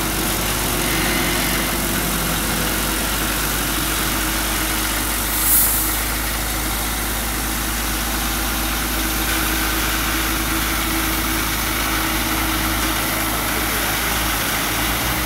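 Diesel engines of heavy-haul trucks running at low revs as they pull a multi-axle trailer with an oversized load: a steady engine drone. A short sharp hiss stands out about five and a half seconds in.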